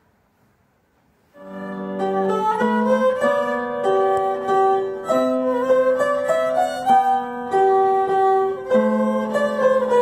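A violin playing a slow melody of held, bowed notes, with piano accompaniment; the music begins about a second in, after near silence.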